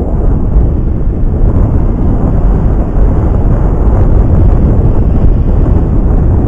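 Wind buffeting the microphone: a loud, steady low rumble with no engine or motor tone standing out.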